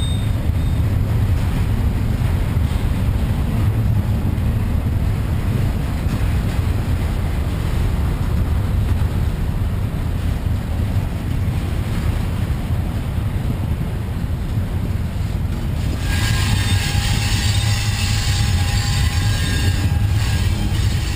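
Double-stack container train rolling past, its well cars giving a steady low rumble. About three-quarters of the way through, a higher-pitched screech with several held tones joins in.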